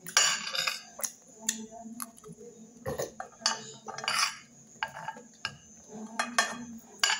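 A metal spoon clinking and scraping against a plate in short, irregular strokes, mixed with the chewing and mouth sounds of someone eating chicken with their fingers.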